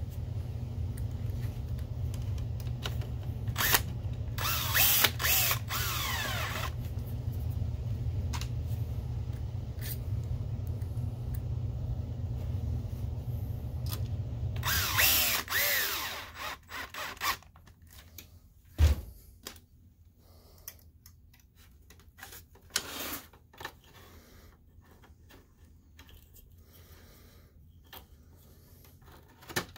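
Electric screwdriver whirring in two runs of a second or two each while driving screws, over a low steady hum that stops about fifteen seconds in. After that come light clicks and taps of parts being handled, and one sharp thump.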